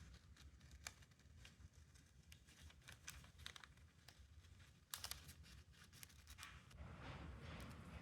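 Faint scattered clicks and rustles of small parts being handled, with a sharper click about five seconds in.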